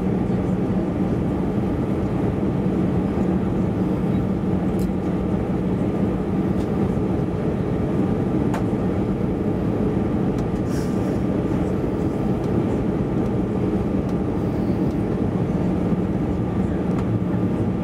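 Steady cabin roar inside an Airbus A320-216 on approach, heard from a seat behind the wing: rushing airflow and CFM56 turbofan engine noise, with a steady low hum and a thin steady whistling tone above it.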